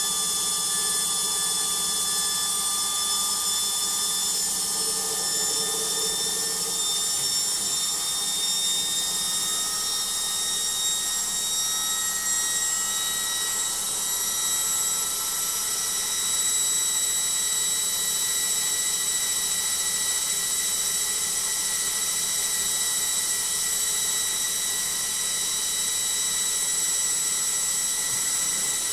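Logik washing machine on its spin cycle: a steady, noisy motor-and-drum whine whose pitch climbs slowly for about the first half as the drum speeds up, then holds steady at full spin speed.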